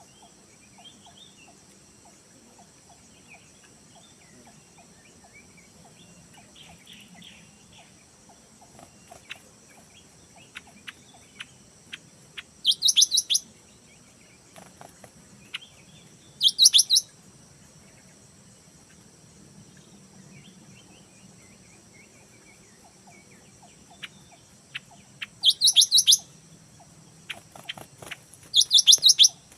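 Wild birds chirping, with four loud bursts of rapid high-pitched chirps, each about a second long, over a steady high insect drone and fainter scattered calls.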